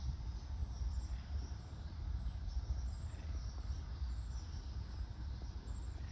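Wind buffeting the microphone as a low, uneven rumble, with faint high chirps repeating about twice a second in the background.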